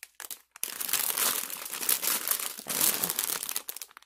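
Clear plastic packaging of a diamond painting kit crinkling as it is handled, in a dense run of crackles that starts about half a second in.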